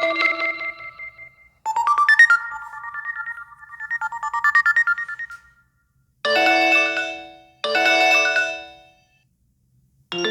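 HTC One M8 stock ringtones played one after another: the tail of one tune fades out, then a fast-pulsing electronic melody runs for about four seconds. After a short gap, two separate chime chords about a second and a half apart each ring out and die away.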